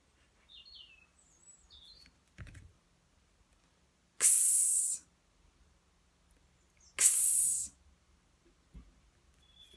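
A woman voicing the phonics pure sound "x", a short clipped /ks/ that is mostly a hiss, twice about three seconds apart. Faint bird chirps in the first couple of seconds.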